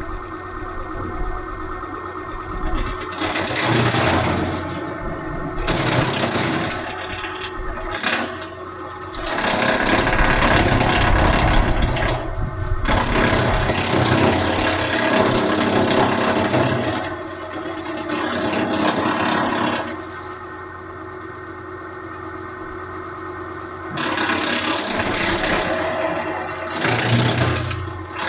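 Engine of a hydraulic wood chipper running steadily, with louder, rougher spells of noise that come and go, the longest lasting several seconds in the middle.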